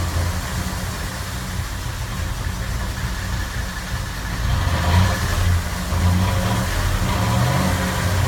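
A 2007 Ford Crown Victoria's 4.6-litre V8 engine running with a steady low drone, swelling briefly about five seconds in.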